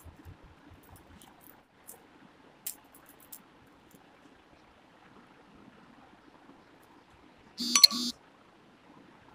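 A few light clicks of small beads being handled over a faint hiss, then near the end a short, loud, high-pitched beep in two quick parts.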